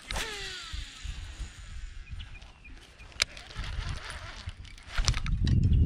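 Baitcasting reel's spool whirring as line pays out on a cast, its pitch falling steadily as the spool slows over about a second and a half. A sharp click comes about three seconds in, and a low rumble grows near the end.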